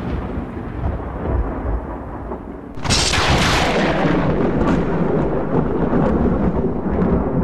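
Thunder sound effect under an intro title card: a low rumble, then a sudden sharp crash about three seconds in that slowly dies away.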